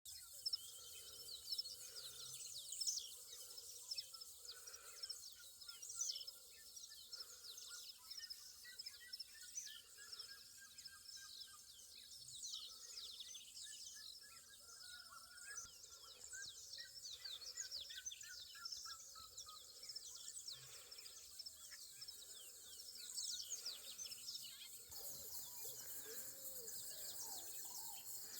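A chorus of several birds singing and calling at once: many quick, high chirps repeating throughout, with some whistled notes and lower, repeated notes mixed in. Near the end a steady, high insect trill joins in.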